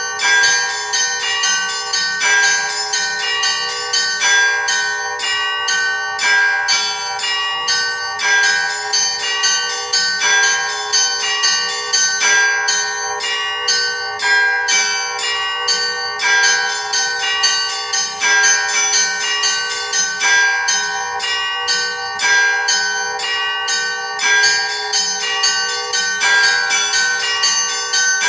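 Five Orthodox church bells, from 8 to 96 kg, rung in a traditional peal by an automatic electronic bell-ringer. A rapid, continuous pattern of strikes on the smaller bells rings over the sustained tones of the larger ones, repeating steadily.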